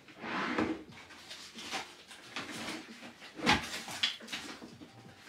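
Rummaging through a desk for a paint tube: things shuffling and clattering, with one sharp knock about three and a half seconds in.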